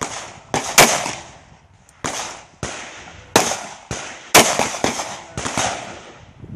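Glock 32 pistol chambered in .357 SIG firing a string of about eight shots at irregular intervals, a fraction of a second to about a second apart, some louder than others, each trailing off in a ringing echo.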